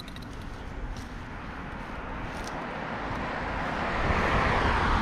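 Steady rushing noise of a passing vehicle, growing louder over the last couple of seconds.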